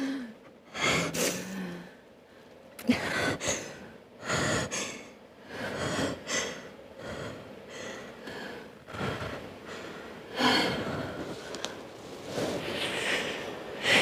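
A woman weeping: irregular gasping, shaky breaths and sobs, with brief catches in the voice, and a louder gasp about ten seconds in.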